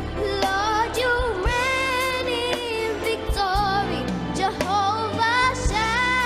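Gospel worship song: a woman sings long held notes with a wide vibrato over bass and drums, without clear words.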